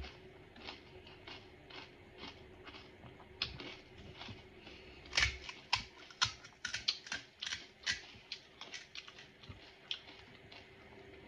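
Crisp little crackles of crunchy fried pani puri shells. There is chewing at first, then a dense run of small cracks from about five seconds in as fingers break open the hollow shells.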